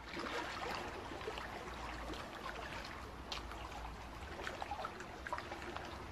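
Liquid trickling sound effect, with many small scattered drips over a low steady rumble, scored to an animated logo intro.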